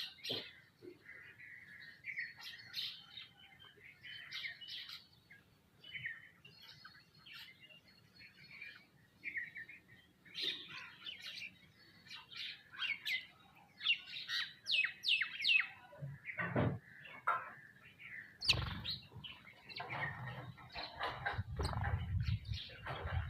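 Sparrows and other small birds chirping busily, many short overlapping chirps and tweets. From about two-thirds of the way in, low thumps and a rumble join the chirping.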